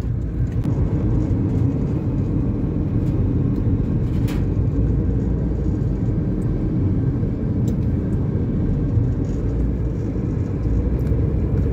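Steady low rumble of a car driving in traffic, engine and tyre noise heard from inside the cabin, with a short click about four seconds in.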